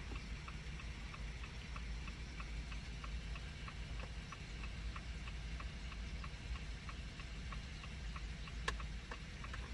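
2019 Jeep Compass's hazard warning flashers ticking evenly, about two to three ticks a second, over a low steady hum from inside the cabin, with one sharper click near the end.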